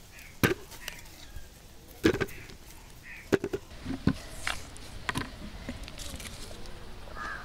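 Cassava roots knocking and thudding as they are dropped one by one into a plastic bucket, about half a dozen separate knocks.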